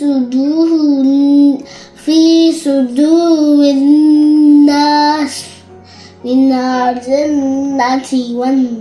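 A young girl singing a slow, melodic chant in long held notes, with two short breaks for breath.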